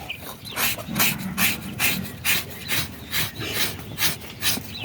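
Repeated rasping, scraping strokes, about two or three a second, from a blade working on a slaughtered pig's carcass during butchering.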